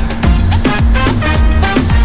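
Upbeat dance music with a steady beat and bright percussion.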